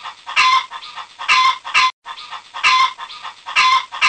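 Chicken clucking and squawking, dubbed in as a sound effect, in a regular repeating pattern: groups of three calls about every two seconds.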